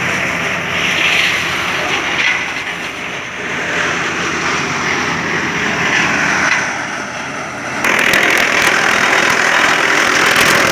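Wood chipper machine running, a steady mechanical noise that swells and eases a few times, then abruptly gets louder about eight seconds in with rapid crackling.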